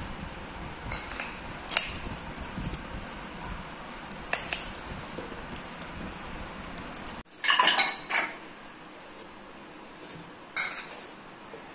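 Rice-flour kozhukattai dough being mixed and kneaded by hand with ghee in a bowl, with scattered clinks and knocks against the bowl, the loudest a short cluster about seven and a half seconds in.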